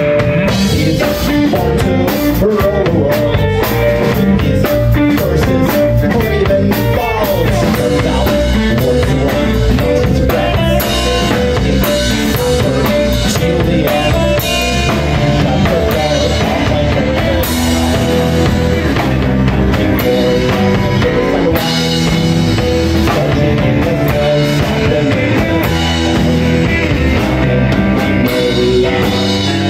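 Live progressive rock band playing an instrumental passage: electric guitar, bass guitar, keyboards and a drum kit.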